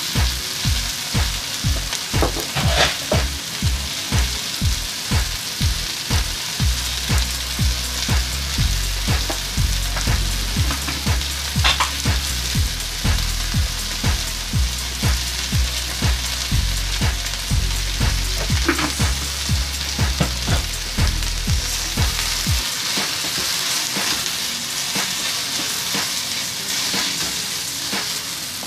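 Sliced okra and onion sizzling in hot oil in a wok, stirred with a wooden spatula. Under the steady sizzle there is a regular low pulse, about two or three times a second.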